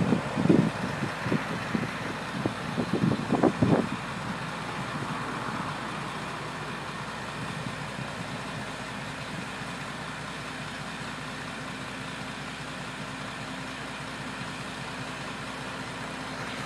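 Jet roar of a C-17 Globemaster's four turbofan engines as the aircraft lands at a distance, with gusts of wind buffeting the microphone for about the first four seconds, then a steady rumble.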